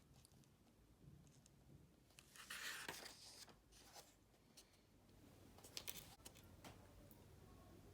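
Quiet room with faint handling sounds: a soft rustle about two and a half seconds in, then a few light clicks and taps near six seconds.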